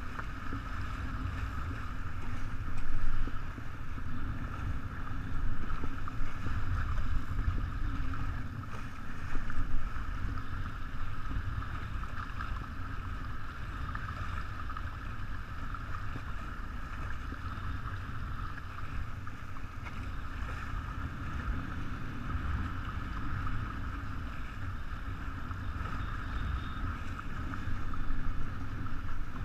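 Wind buffeting the microphone and water rushing along the hull of a 49er skiff sailing at about eight to nine knots, a steady rush with a few louder gusts in the first ten seconds.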